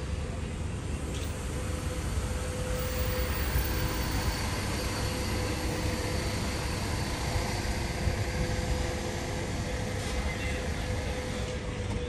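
Machinery of a 57-metre motor superyacht running as it manoeuvres to dock: a steady low rumble with a thin steady whine above it that grows clearer about three seconds in.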